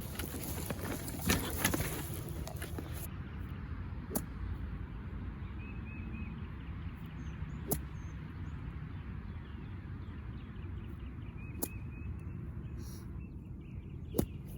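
Outdoor ambience: a steady background hiss broken by a handful of sharp clicks a few seconds apart, the loudest about a second in, with a few faint bird chirps.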